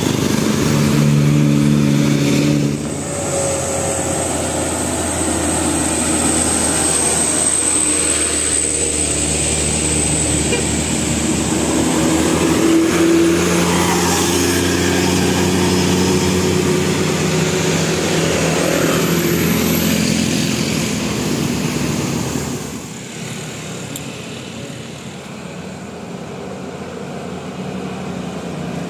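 Large road vehicles running: steady engine and road noise with low engine hum, dropping in level about twenty-two seconds in.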